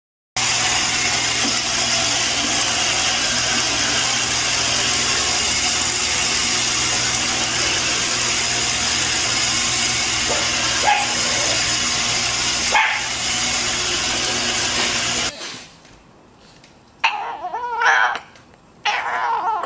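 Robot vacuum cleaner running steadily, with two short sounds over its noise. Its sound cuts off suddenly about three quarters of the way through, followed by a few short bursts of sound.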